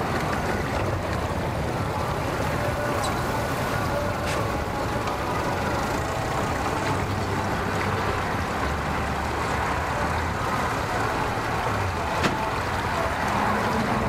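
Suzuki 150 four-stroke outboard motor running at idle as the boat creeps along slowly: a steady low engine hum, with a few faint clicks.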